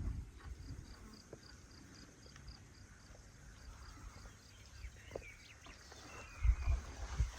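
Cricket chirping in an even rhythm of about three chirps a second, fading out about four seconds in. A few short bird chirps follow, and heavy low thuds come near the end.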